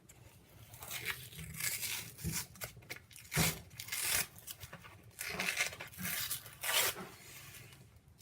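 Tape being peeled and torn off a parcel's packaging, in a series of irregular rasping tears.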